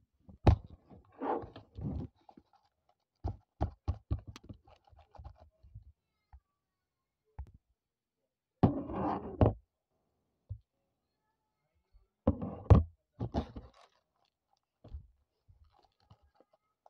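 A taped paper packet handled by hand: bursts of paper crinkling and rustling, with scattered taps and knocks against a tabletop between them.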